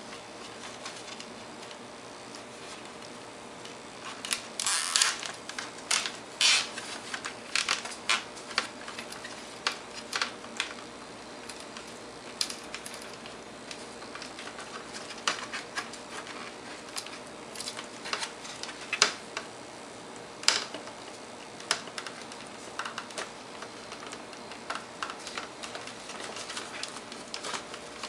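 Irregular small clicks and short scrapes of hands handling a USB cable and plastic case parts, busiest a few seconds in, over a faint steady hum.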